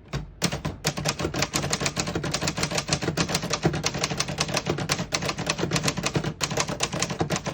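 A 1970 Hermes Rocket portable typewriter being typed on at a fast, even pace, a rapid run of sharp key strikes with one brief break near the end.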